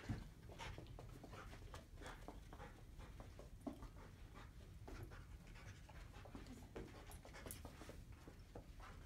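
A dog panting and sniffing faintly as it works along a row of plastic boxes, with scattered short ticks and rustles. A sharp tap just at the start is the loudest sound.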